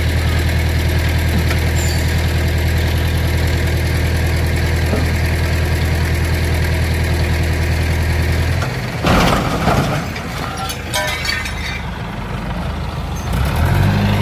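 Hydra mobile crane's diesel engine running steadily under load while righting an overturned truck. About nine seconds in there is a sudden loud crash with rattling clatter for a couple of seconds, as the truck comes down onto its wheels. The engine picks up again near the end.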